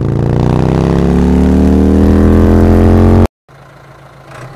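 Motorcycle engine accelerating, its pitch rising steadily for about three seconds, then cut off abruptly. A much quieter tractor engine idling starts right after.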